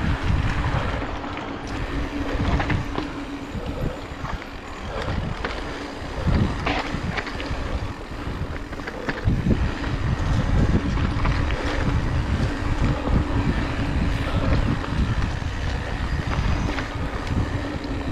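Wind buffeting the microphone of a camera on a moving mountain bike, with the tyres rolling over a dirt trail and many short clicks and rattles from the bike over bumps.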